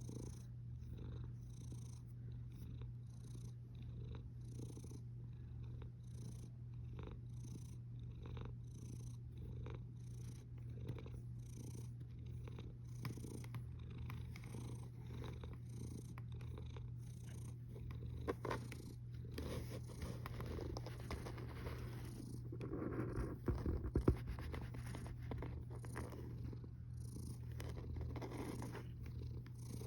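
Domestic cat snoring in its sleep, a soft rhythmic rasp with each breath, over a steady low hum. For a few seconds past the middle the breathing turns louder and rougher.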